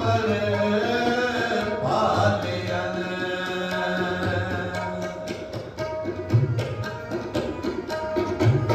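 Gurbani kirtan on harmonium and tabla: the harmonium holds steady notes while the tabla keeps time, its strokes growing busier and more prominent in the second half.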